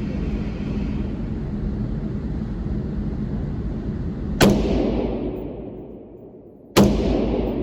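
Two rifle shots about two and a half seconds apart, each followed by a long echo fading away, over a steady low rumbling noise.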